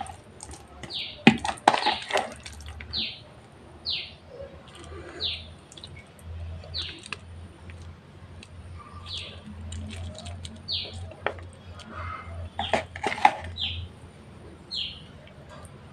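A bird in the background calling over and over, a short chirp falling in pitch about once every second or so. A metal spoon scrapes and taps against a plastic bowl twice, about two seconds in and again near the end, louder than the bird.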